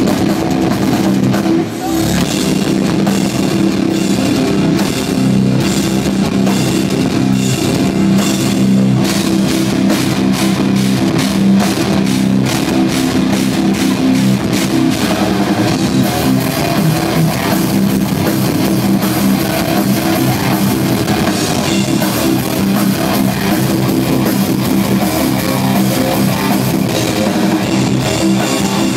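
Live metalcore band playing loud: distorted electric guitars over a pounding drum kit, continuous throughout.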